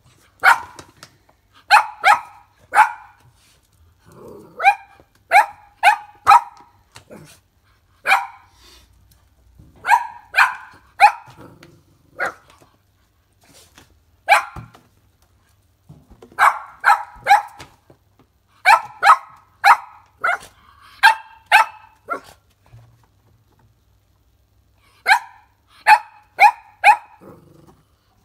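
Cavalier King Charles spaniel puppy barking: short, sharp, high barks in quick runs of two to four, with brief pauses between the runs.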